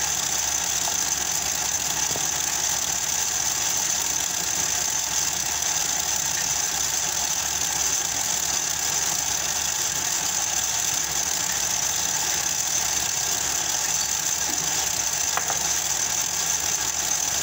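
Electric stand mixer running steadily, beating eggs in its stainless steel bowl.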